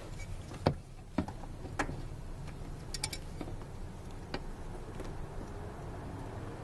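Scattered small clicks and knocks of plastic electrical connectors being handled and pushed into their sockets on a car's fuel pump module, including a quick run of three clicks about three seconds in.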